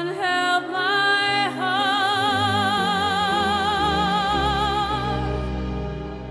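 A woman singing a stage-musical ballad over instrumental accompaniment: a few short notes, then one long note held with vibrato for several seconds.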